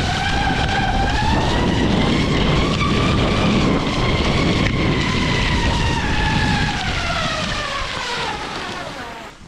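Fish-scale pattern on the base of a waxless cross-country ski buzzing against the snow on a downhill glide: a loud whine over a steady hiss. Its pitch follows the ski's speed, climbing over the first few seconds, then sinking steadily until it fades out near the end. The whine is the drag of the scale pattern.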